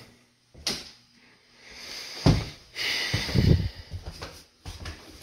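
Scattered knocks and thumps from footsteps and handling of a handheld camera on a hard floor, with a short rustling hiss about three seconds in.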